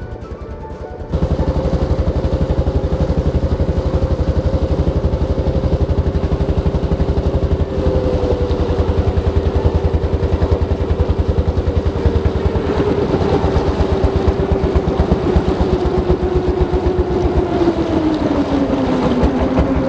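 A fishing boat's engine cuts in loud about a second in and runs steadily with a fast, even pulsing beat. Near the end its pitch drops as the engine slows.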